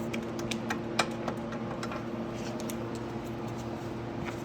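Scattered light clicks and taps of a hand tool working a bolt into a plastic dirt-bike fairing, the sharpest about a second in, over a steady low hum.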